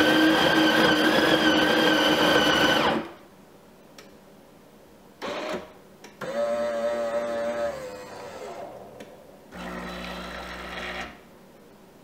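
Tchibo bean-to-cup coffee machine working through a brew cycle: the built-in grinder runs loudly and steadily for about three seconds and stops. After a pause, the machine's motor and pump run in two shorter whirring and humming spells.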